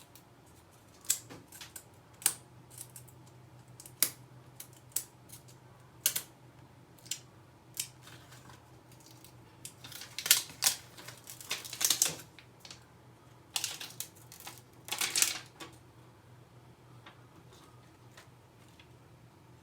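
Hands handling and cleaning parts of a toothbrush holder. There are scattered sharp clicks and taps, and two stretches of rubbing, about ten and fourteen seconds in.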